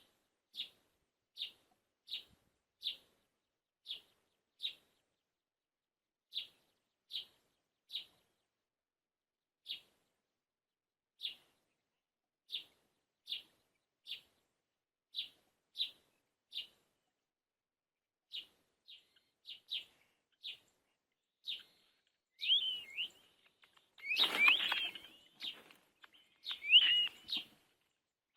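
A bird giving short, sharp, high chirps one after another, about one to two a second with occasional pauses. Over the last few seconds the calls grow louder and more varied, with a brief rustling burst among them.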